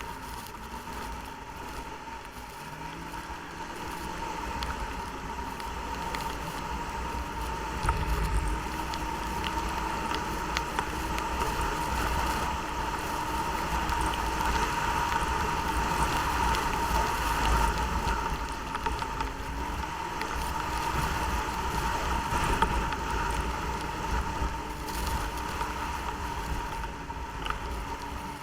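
Snowmobile engine running under way, its pitch rising and falling with the throttle over a steady high whine, with wind rumbling on the microphone.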